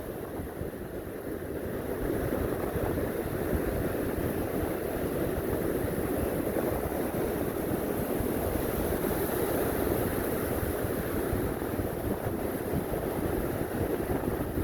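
Ocean surf washing steadily onto a beach, a continuous even rush.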